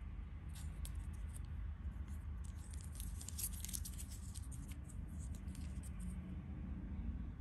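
Plastic clipper attachment combs being handled, giving a scatter of light clicks and taps that come thickest around the middle, over a steady low hum.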